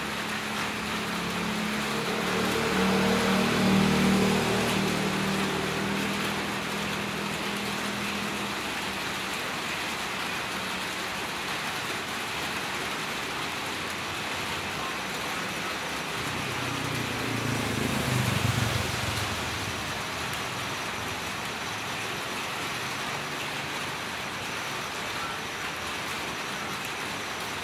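Steady rain falling on a wet road. Twice a motor vehicle passes, swelling and fading: once a few seconds in and again about two-thirds of the way through.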